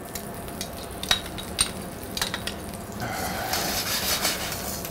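Sliced garlic sizzling in hot olive oil in a stainless steel skillet, with a few light clicks of metal utensils against the pan. The sizzle grows louder about three seconds in.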